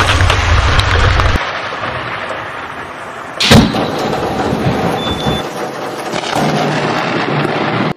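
Storm-at-sea film sound effects: a dense rush of wind and heaving water over a deep low rumble that drops away after about a second and a half. About three and a half seconds in comes one sudden loud crash, the loudest moment.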